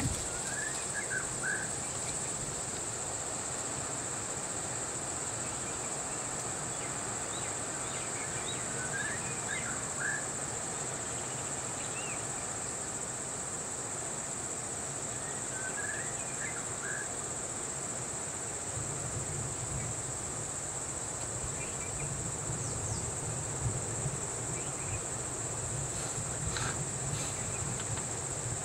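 Steady high-pitched insect drone with a few short bird chirps. About two-thirds of the way through, a low hum joins in underneath.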